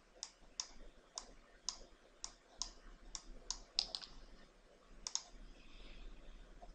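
Computer mouse button clicking as vertices are picked one at a time, about two sharp clicks a second for the first four seconds. A quick double click follows about five seconds in.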